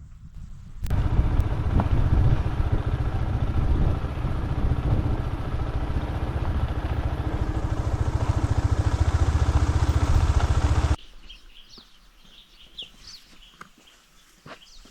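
Motorcycle engine running on the move, starting abruptly about a second in and cutting off suddenly about three-quarters of the way through. After the cut come faint bird chirps.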